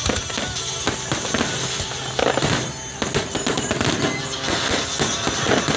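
Aerial fireworks shells bursting in quick succession: a dense run of bangs and crackles, with music playing underneath.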